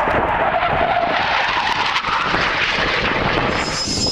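BAE Hawk jet's Rolls-Royce Adour turbofan passing overhead, a dense rushing jet noise that slides slowly down in pitch. Near the end it changes suddenly to the Hawk on the runway, its engine carrying a high, steady whine.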